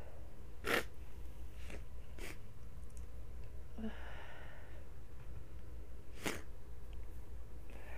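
A woman sniffling through a runny nose after a sneeze, about four short sniffs spread over several seconds, the first and last the strongest. About four seconds in there is a faint breathy sound from her throat.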